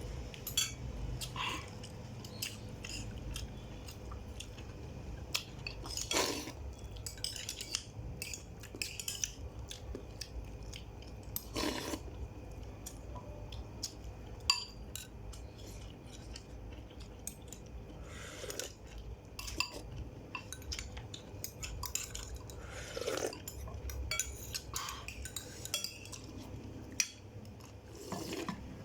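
Utensils clinking, knocking and scraping against pots and dishes in irregular, scattered strikes, some with a brief ring.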